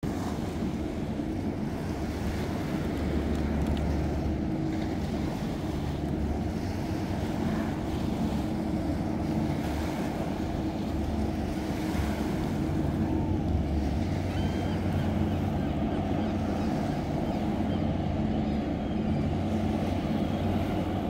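Passenger hovercraft running at speed across open water, its twin ducted propellers and engines giving a steady drone, mixed with wind rumbling on the microphone.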